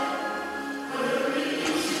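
Christmas fireworks show soundtrack music with choral singing, easing off slightly and then swelling again about a second in.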